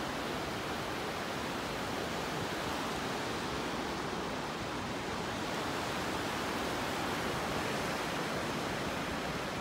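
Ocean surf washing in at the shoreline: a steady rushing noise.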